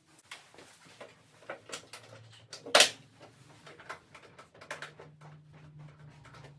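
Scattered light clicks and knocks of parts and tools being handled during assembly, with one sharp, loud knock about three seconds in.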